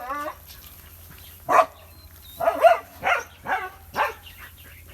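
Bangkaew puppies, about a month old, yapping and whining in a string of short, high calls, about six in a row.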